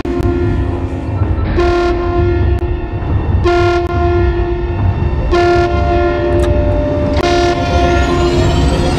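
Background music: sustained synthesizer chords that change about every two seconds, each new chord starting with a bright hit, over a steady deep bass.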